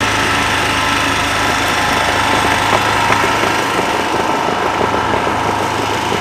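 Small portable generator's engine running steadily at an even pitch.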